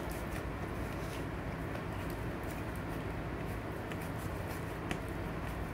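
A silicone spatula stirring glittery glue slime in a plastic tub, making small irregular clicks over a steady low hum.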